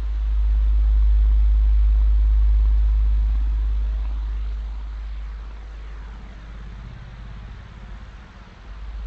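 Sci-fi 'alien radio signal' sound effect: a deep low drone under a hiss of static, with faint sweeping tones crossing it. The drone swells over the first second, holds, then fades from about three seconds in, dipping lowest just before the end.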